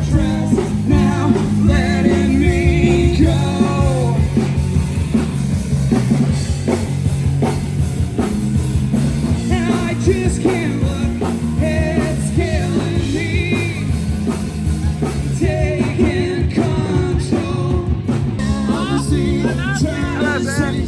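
Band music with a singer and drums keeping a steady beat.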